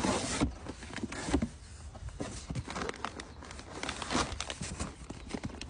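MRE pouches being rummaged through: thick plastic meal bags rustling and knocking against one another in irregular clunks and taps.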